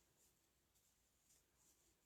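Near silence: room tone with a few very faint, soft scratching sounds.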